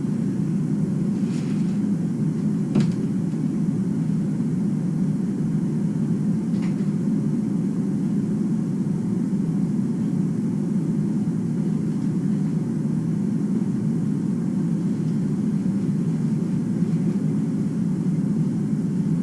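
Steady low rumble with a couple of faint clicks.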